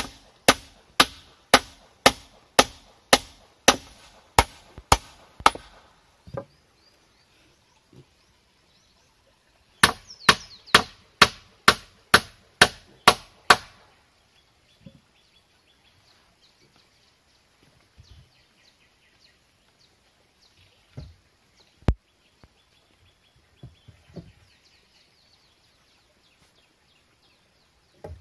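Hammer driving nails into a wooden pole crossbar on a log post: a steady run of blows about two a second for five or six seconds, then a second run of about eight blows starting some ten seconds in. After that, lighter knocks of wooden poles being handled, with one sharp knock a little past the middle.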